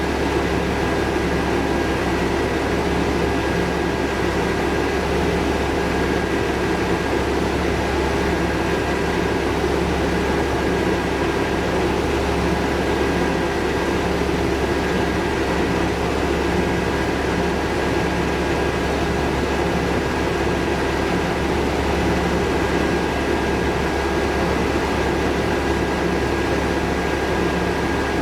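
Steady machine drone, deep and unchanging, with a thin high whine held over it throughout.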